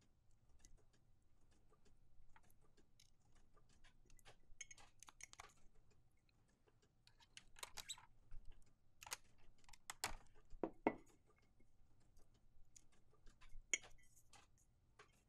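Faint handling sounds of a ceramic mug and heat tape: scattered soft clicks and knocks as the mug is turned and set on a desk, with a brief rustle of tape about five seconds in and the sharpest knocks around ten seconds in.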